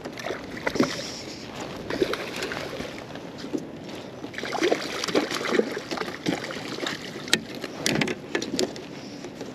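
Water sloshing and splashing at a small fishing boat while a snapper is netted, with scattered sharp knocks and clatters on the boat.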